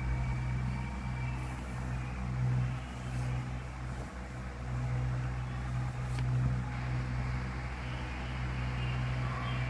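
Siamese cat purring, a low, steady rumble that pauses briefly about every second or so as she breathes in and out.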